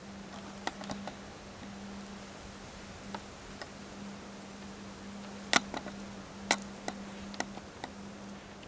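Scattered sharp clicks and ticks, the two loudest about two-thirds of the way through, over a steady hiss and a constant low hum.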